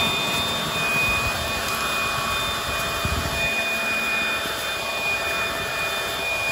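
Leaf blower running steadily with a high whine over a rush of air, blasting burning leaf litter at the fire's edge back into the burnt ground to put the flames out.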